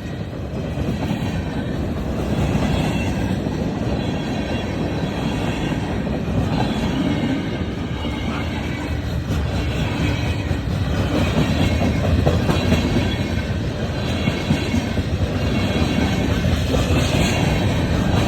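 Freight train rolling past close by: a steady heavy rumble of wheels on rail with a rapid clatter of cars, and a faint high wheel squeal over it.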